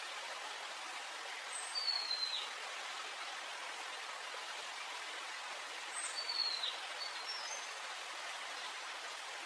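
Steady hiss of rain falling. A bird calls twice over it, about two seconds in and again about six seconds in; each time a short high note is followed by a downward-sliding call.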